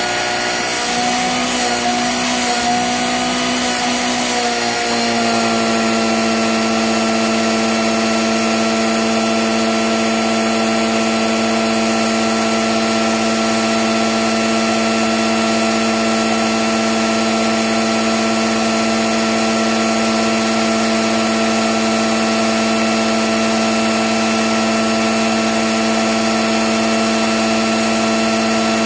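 A small motor running with a steady, pitched hum; the pitch wavers for the first few seconds, then settles and holds.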